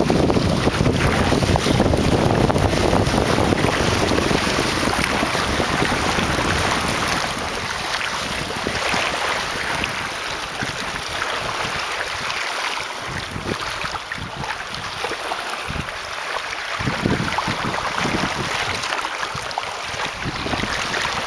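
Wind buffeting the microphone over water rushing and splashing past a small sailing boat. The low wind rumble is heavy at first and eases about a third of the way through, leaving mostly the hiss and splash of the water, with gusts coming back near the end.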